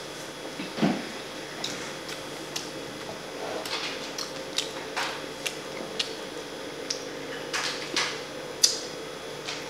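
A person chewing food with wet mouth clicks and lip smacks coming at irregular intervals, the sharpest near the end. A dull thump about a second in.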